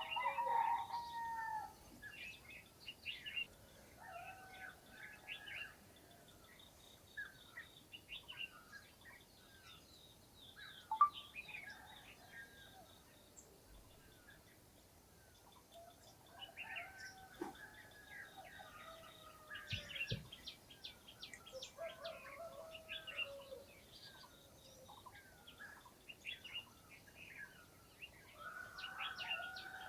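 Several birds chirping and calling over one another in a village morning chorus, with some lower, falling calls mixed in. A single sharp click about eleven seconds in.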